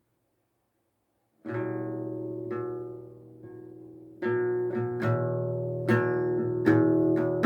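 Acoustic guitar strumming chords as a song's intro: nearly silent for the first second and a half, then a chord rings out, followed by more strummed chords that grow louder from about four seconds in.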